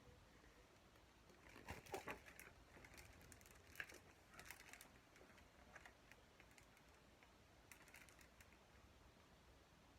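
Near silence with a few faint scattered clicks and crackles, the clearest about two seconds in and again around four seconds.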